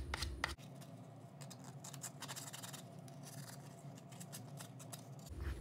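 Sandpaper wrapped around a sanding block being rubbed by hand over a small wooden piece, in short scratching strokes that grow fainter after the first half second.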